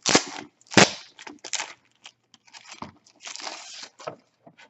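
A pouch of punch-out game pieces being torn open by its easy-open tear strip and crinkled: a run of sharp rips and rustles, the loudest at the start and about a second in, with a longer rustle near the end.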